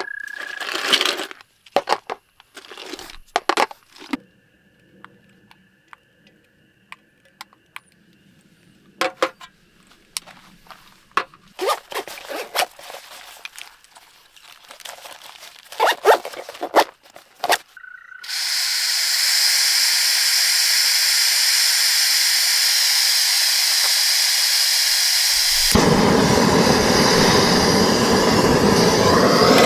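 Gear being handled with scattered knocks and clicks, then an MSR PocketRocket 2 canister stove: its gas valve opens with a steady hiss about two-thirds of the way in, and some seconds later the burner lights and runs with a fuller, deeper flame sound.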